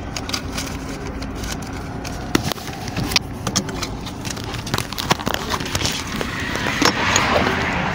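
Low, steady rumble of a car's cabin with scattered clicks and rustles of a wallet and phone being handled. A louder hiss builds near the end.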